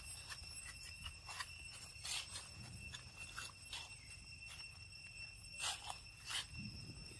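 Scattered short crackles and rustles of dry leaves as a macaque moves over leaf litter and handles a mango, the loudest about two seconds in and twice near the end, over a steady high-pitched insect drone.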